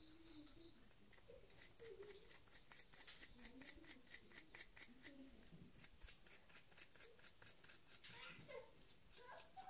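Quiet run of rapid light clicks, about four or five a second, that stops about seven seconds in, with faint voices in the background.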